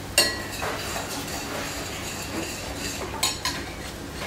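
A metal utensil clinking and scraping against a metal sauté pan as spaghetti is tossed in tomato sauce: a sharp clink just after the start and two more about three seconds in.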